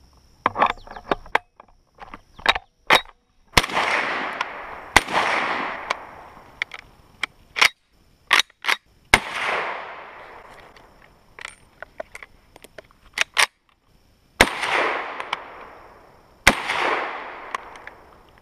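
M1 Carbine being loaded with a few metallic clicks, then fired single shots: five loud shots spaced irregularly several seconds apart, each followed by a long echo dying away, with sharper clacks and clicks of the action in between.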